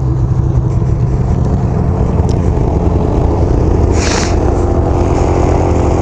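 Ski-Doo Rev snowmobile engine running steadily under way, with a brief hiss about four seconds in.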